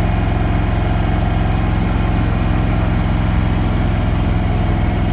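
Engine-driven welding generator running steadily, its engine note even and unchanging.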